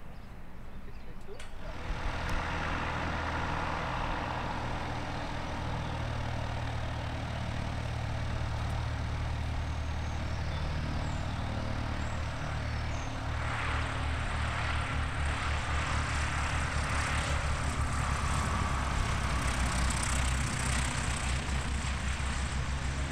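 Piper Cub light aircraft's piston engine and propeller droning steadily in flight, setting in about two seconds in. From about halfway it grows louder and its beat more distinct as the Cub comes in low over the runway.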